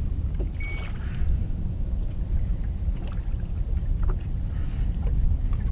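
Wind buffeting the microphone as a steady low rumble, with one short high electronic beep less than a second in from a handheld digital fish scale weighing a bass.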